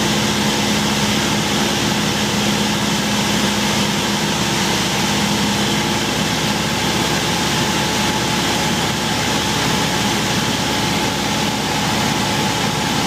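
Single-engine light aircraft's piston engine and propeller droning steadily, heard from inside the cockpit in cruise flight. The tone of the drone shifts slightly about halfway through.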